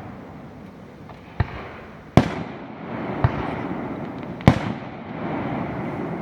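Fireworks display: four aerial shell bursts go off one after another, the second and fourth the loudest, each trailing off in a rolling echo over a steady rumble of more distant bursts.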